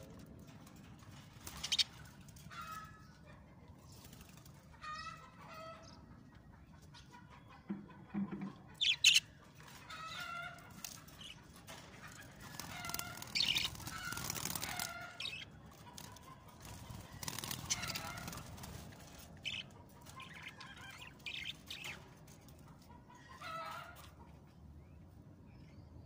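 Caged budgerigars chirping in short scattered calls, with bursts of wing flapping about halfway through and again a few seconds later, and a few sharp clicks about a third of the way in.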